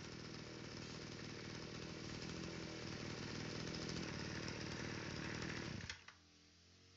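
Kyoritsu SRE235 brush cutter's small two-stroke engine running steadily, a little louder from about two seconds in, then stopping abruptly about six seconds in.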